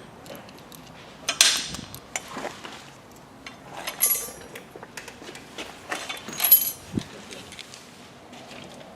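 Metal pump parts clinking and knocking together as they are handled and fitted during reassembly of a Grundfos vertical-shaft pump's seal stack, with three louder clanks that ring briefly, about a second and a half in, at four seconds and at six and a half seconds.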